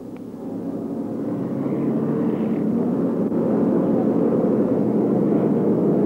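Offshore racing powerboats running flat out side by side, their big inboard engines giving a dense, steady drone that swells over the first two seconds and then holds as the boats pass.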